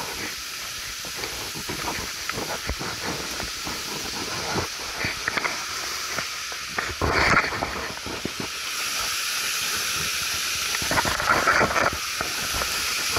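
Waterfall and creek water rushing, a steady hiss that grows louder from about nine seconds in, under close footsteps, knocks and scrapes of a hiker clambering over rocks and fallen branches.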